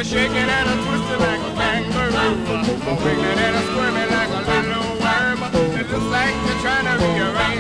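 Up-tempo twist-era rock and roll record playing from an acetate disc: a band with a steady beat.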